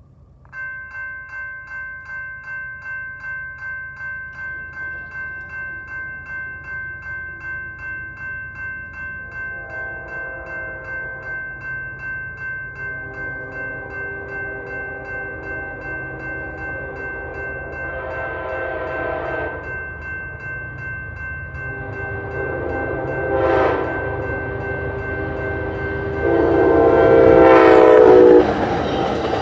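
Electronic railroad-crossing bells (GS Type 2 E-Bells) ringing steadily at about two strokes a second. From about ten seconds in, an approaching Amtrak passenger train sounds its horn in several blasts, growing louder, with the loudest long blast near the end as the train reaches the crossing.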